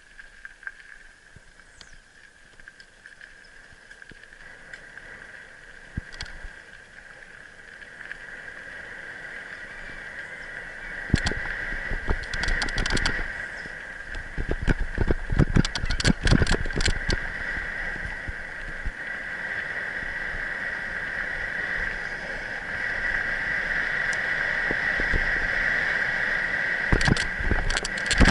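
A steady high-pitched buzz that slowly grows louder, with bursts of knocks and rustling about a third of the way in and again near the end.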